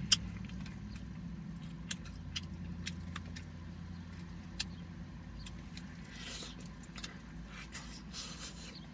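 Steady low hum inside a parked car, with scattered light clicks and smacking from eating rotisserie chicken by hand. A sharp click just after the start is the loudest sound.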